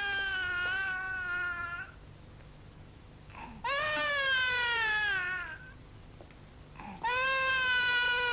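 A woman wailing: three long, high cries, each falling in pitch with a slight waver, with short pauses between them.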